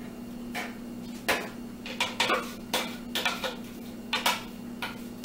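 A spoon knocking and scraping against a blender jar as thick blended sauce is tapped out into a glass bowl: a run of sharp, irregular clicks and knocks.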